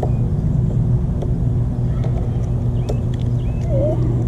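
Steady low machine hum, like an engine or motor running out of sight, with a few light metallic clicks as a hose clamp on a push-mower handle is worked with a small tool.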